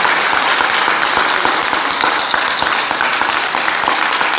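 Audience applauding: many hands clapping steadily in a dense, continuous patter.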